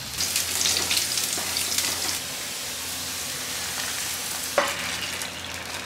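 Minced garlic sizzling and crackling in hot oil, busiest in the first two seconds and then a steadier hiss, with a wooden spatula scraping. A single sharp knock about four and a half seconds in.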